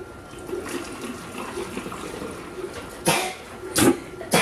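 Liquid poured from a small cup through a plastic funnel into a plastic bottle, trickling and splashing, with three brief louder bursts in the last second and a half.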